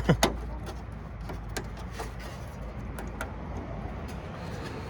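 Scattered light clicks and taps of hands handling trunk latch parts and fittings, over a low steady rumble.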